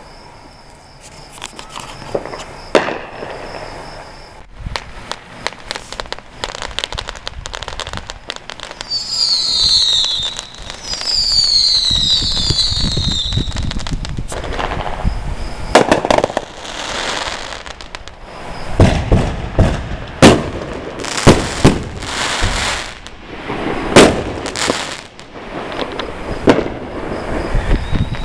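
Fireworks going off: a string of sharp bangs and crackling, with several high falling whistles about nine to thirteen seconds in. The heaviest run of loud bangs comes in the second half.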